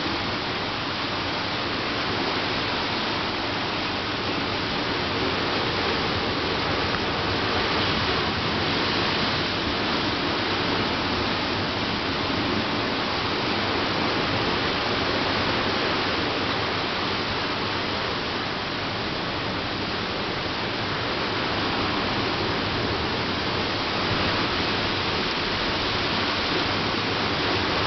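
Ocean surf washing, a steady rushing noise that swells and eases slowly over several seconds.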